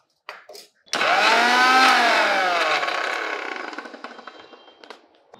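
Indian mixer grinder (mixie) grinding roasted chillies, spices and soaked tamarind. After a couple of light clicks the motor starts suddenly about a second in, rises briefly in pitch, then falls and winds down over the next few seconds.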